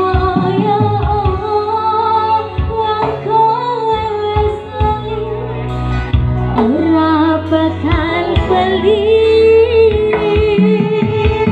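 Woman singing a Javanese campursari song live through a PA system, with vibrato on long held notes. She is backed by keyboard, electric guitar and hand drums that keep a steady beat under her.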